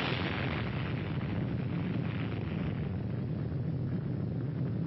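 Rumble of an atomic bomb explosion on a film soundtrack: a dense, even wall of noise that holds steady.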